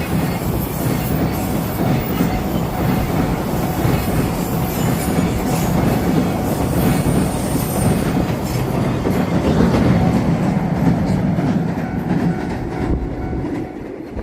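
Freight train hauled by an EF210 electric locomotive rolling past, its wagon wheels clacking over the rail joints in a steady rumble. The rumble fades near the end as the last wagons go by.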